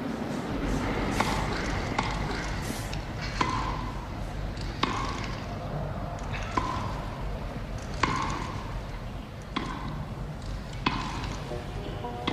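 Tennis rally: a ball struck by rackets, about eight sharp pops each with a short ringing tone, spaced a second or two apart.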